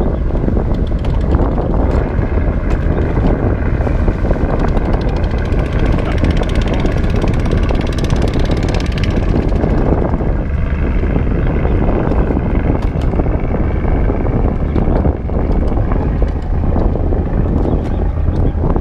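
Wind buffeting the camera's microphone in a steady low rumble, with a boat's engine running steadily on the river underneath it.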